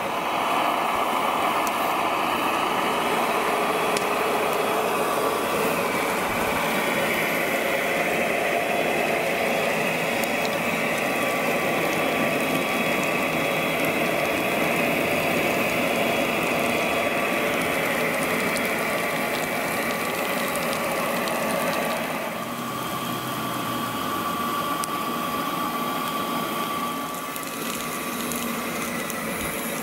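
Small electric water pumps of radio-controlled model fire trucks running steadily, a dense mechanical whir, as they drive jets of water. The sound eases a little about two-thirds of the way in.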